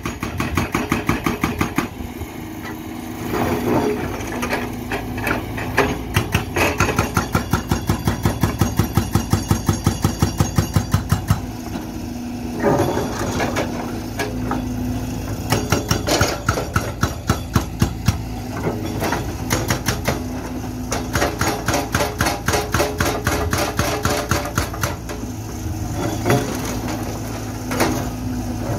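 Hydraulic breaker on a SANY excavator hammering, rapid, evenly spaced blows at about four a second in several runs with short pauses, breaking up reinforced concrete foundation. The excavator's diesel engine runs steadily underneath.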